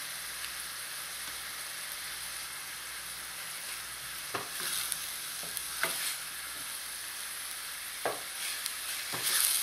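Chopped onions sizzling steadily in hot oil in a stainless steel pot, sweating in salt at the start of a sofrito. From about four seconds in, a wooden spoon stirs them, with a few short scrapes against the pot, the strongest near the end.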